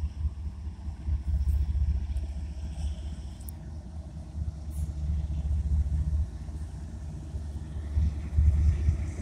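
Low rumble of a CSX diesel freight locomotive drifting slowly closer as the train comes in to stop, swelling and easing as it nears.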